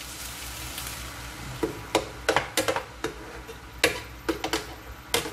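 Vegetables sizzling in a frying pan as water is added, then a metal spoon stirring and clinking against the pan in a run of sharp knocks.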